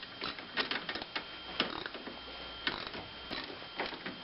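Ratchet wrench clicking in short, irregular runs while snugging up the bolts of a car's hood latch after moving it to its highest position.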